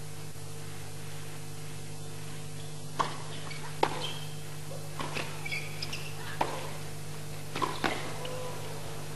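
Tennis ball struck by rackets in a rally: a serve about three seconds in, then sharp racket-on-ball hits about a second apart, with a few short squeaks between strokes. A steady low hum runs underneath.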